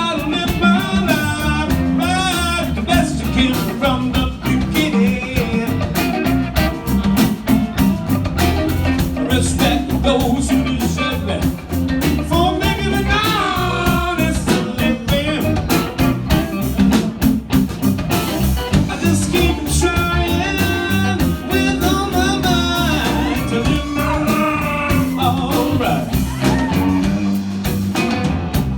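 Live blues band playing a slow blues. Electric guitar leads with bent, wavering notes over bass and drums.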